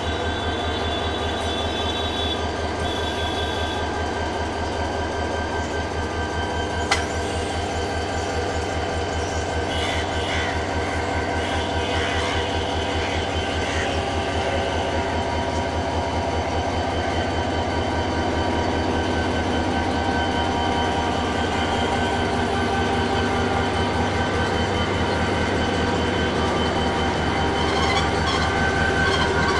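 Diesel locomotive engine running at close range with a steady low throb and a constant hum of tones above it. There is a single sharp click about seven seconds in, and the engine grows a little louder near the end.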